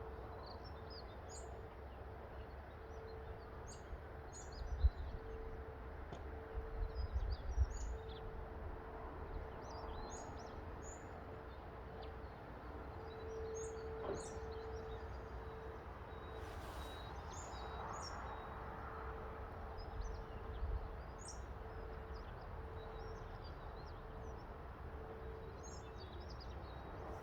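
Small birds chirping here and there over a low wind rumble on the microphone, with louder gusts about five and seven seconds in. A faint steady hum runs underneath.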